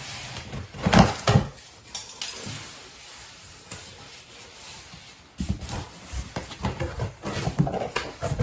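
A knife slitting packing tape along the seam of a cardboard box, with two sharp knocks about a second in, then the cardboard flaps being pulled open, crackling and rustling for the last few seconds.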